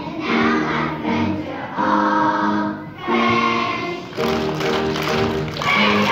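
A choir of young children singing a song together, in phrases of short held notes.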